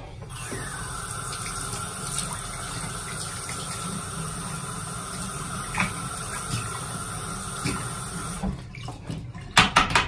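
Bathroom sink faucet running with its aerator removed, water pouring into the basin while hands rinse the aerator in the stream. The water shuts off about eight and a half seconds in, followed by a few sharp clicks near the end.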